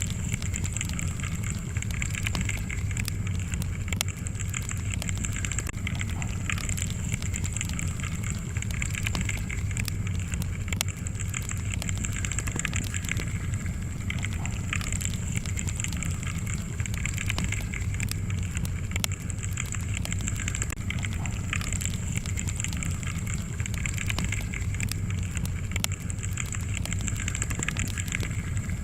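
Wood fire burning, with a steady low rumble of flames and frequent sharp crackles and pops from the burning logs.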